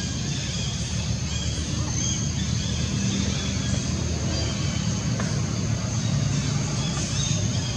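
Steady low engine rumble from a running motor vehicle.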